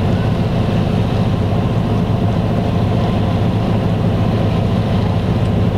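A 1936 wooden power yacht's inboard engine running steadily at cruising speed, about 1650 RPM, a constant low drone.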